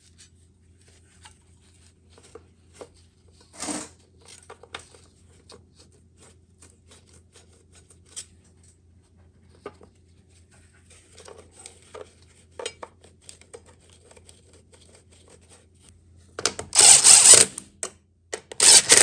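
Light metal clicks and taps as a steel bracket and bolts are handled and fitted against a car's inner fender, over a faint steady hum. Near the end comes a loud rattling run of a hand ratchet driving a bolt in, then a second short one.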